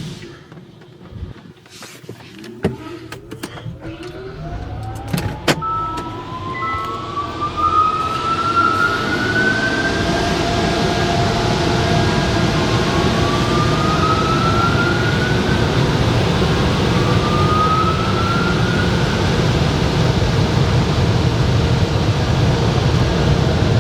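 Automatic car wash blowers starting up. A few clicks come first, then rising whines as the fan motors spin up one after another, settling into a steady, loud rush of air.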